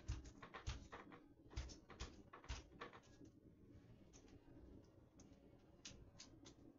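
Faint knocks and clicks as the bottom of a pleated paper blackout shade is handled at the window sill. There is a cluster of about six in the first three seconds, then a few softer clicks later.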